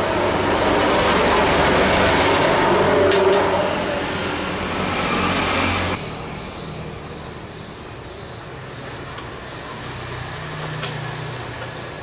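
A loud, steady, vehicle-like rumble and hiss, likely traffic, stops abruptly about halfway through. After it, a few separate knife chops on a plastic cutting board sound over a low hum.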